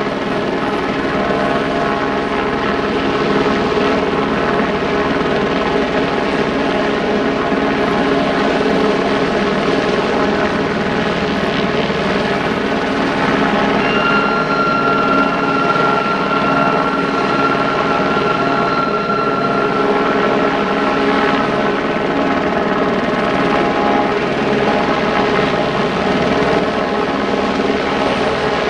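A helicopter running steadily, its engine and rotor making an even drone throughout. About halfway through, a thin high squeal joins in and holds for about seven seconds.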